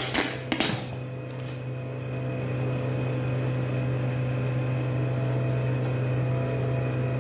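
Paper and tape wrapping of a small parcel crackling and tearing as it is pulled open, a few sharp rustles in the first second, over a steady low mechanical hum.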